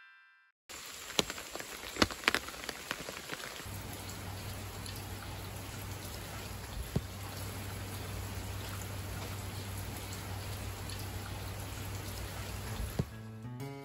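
Steady rain falling, with a few sharp drips landing in the first couple of seconds and one more midway. A low steady hum sits under the rain from about four seconds in, and a light tune starts near the end.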